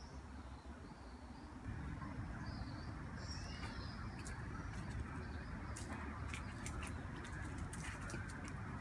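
Outdoor street ambience with small birds chirping faintly in the first few seconds. A low steady rumble comes in about two seconds in, and quick irregular crackles and clicks fill the second half.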